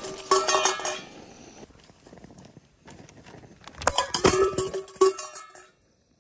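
Metallic clinks and clatter against a metal cooking pan in two bursts, the second a tumbling clatter as a phone on its tripod falls onto the pan of hot oil. The sound cuts off suddenly just before the end.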